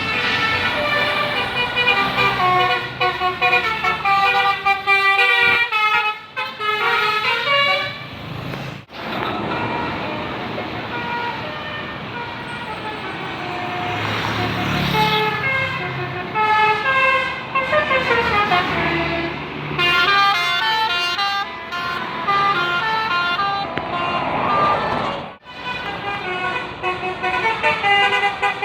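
Bus 'telolet basuri' multi-trumpet air horns playing quick melodies, the notes stepping up and down in runs, over vehicle engine noise. The audio cuts to a new tune about nine seconds in and again near twenty-five seconds.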